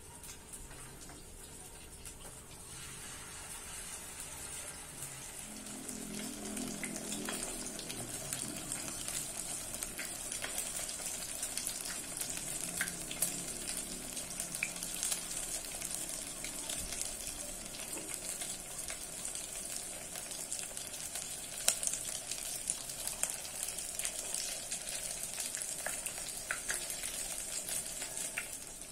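Chicken cutlet patties frying in hot oil in a pot: a steady sizzling hiss with scattered crackling pops, growing a little louder over the first few seconds.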